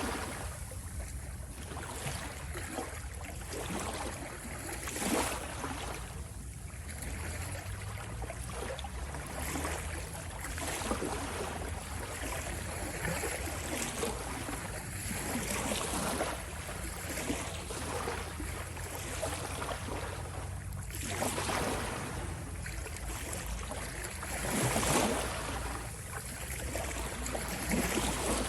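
Ocean waves washing in and out over a steady low rumble, swelling in louder surges every few seconds.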